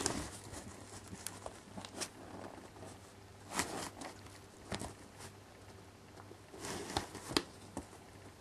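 A cat stepping and pawing about on cardboard and at a fabric cat dome: scattered soft rustles and light taps, with a few sharper clicks at the start, midway and near the end.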